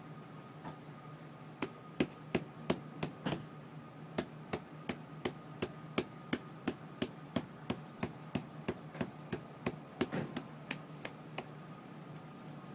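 Sharp taps at the base of a car windshield, about three a second and evenly spaced, from an auto glass technician's work during a windshield replacement. They start about a second and a half in, pause briefly near four seconds, and stop shortly before the end.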